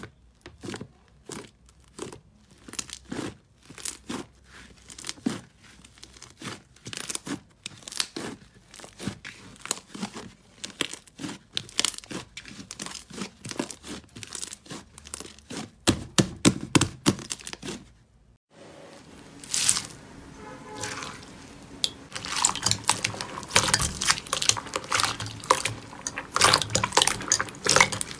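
Thick blue slime being poked and pressed flat by fingers, giving a run of sharp crackles and pops. After a short break about two thirds in, clear slime full of small beads is squeezed by hand, with denser, louder crackling.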